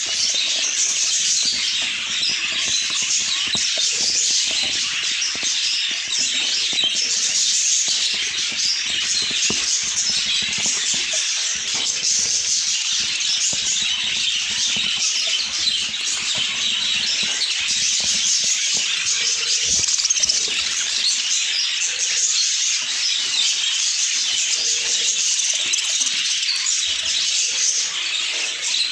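A flock of budgerigars chirping and chattering, many birds at once in one dense, unbroken chatter.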